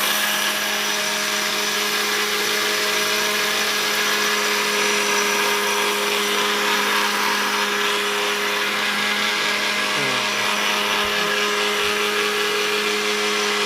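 An 800-watt mixer grinder running steadily at full speed, its blades grinding dry rice grains into powder, with an even, unchanging motor pitch.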